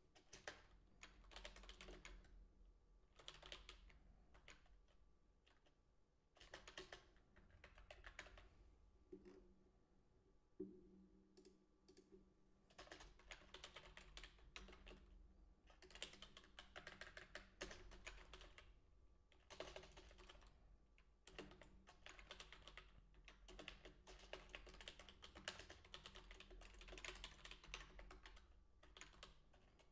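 Faint typing on a computer keyboard in bursts of rapid keystrokes, with short pauses between runs, and longer unbroken runs in the second half.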